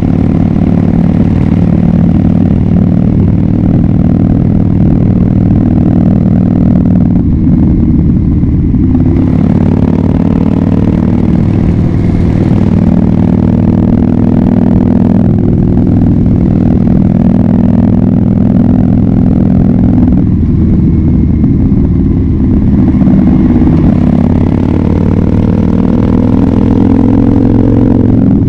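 2011 Harley-Davidson Dyna Fat Bob's V-twin engine running loud through a KessTech ESM3 aftermarket exhaust while riding, the engine note climbing steadily as it pulls. It eases off briefly twice, about seven and twenty seconds in, then climbs again.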